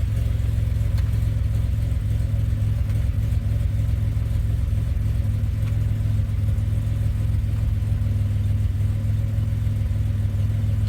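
2007 Pontiac Grand Prix GT's 3.8-litre supercharged V6 idling steadily, freshly restarted now that the crank-no-start fault is cured.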